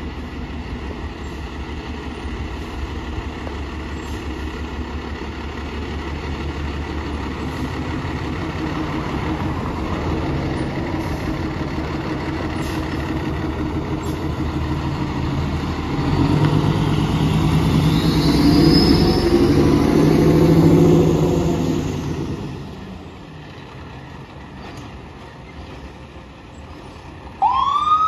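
Aerial ladder fire truck's diesel engine running, growing louder as the truck pulls out and drives past, loudest about two thirds of the way in, then fading. Near the end the truck's siren starts with a rising wail.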